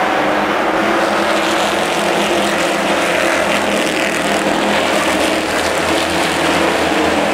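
A field of late model stock cars racing around a short oval, their V8 engines running hard together in one steady, loud drone.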